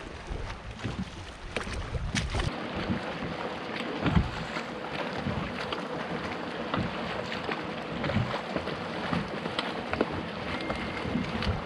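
Wind buffeting the microphone and water lapping, with scattered small knocks and clicks. The wind rumble is heaviest for the first two and a half seconds, then eases.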